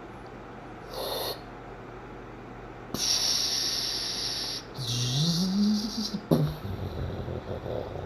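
A person making mouth sound effects: a short breathy hiss, then a long hiss, then a hiss with a hooting hum that rises in pitch and holds. A sharp click follows about six seconds in.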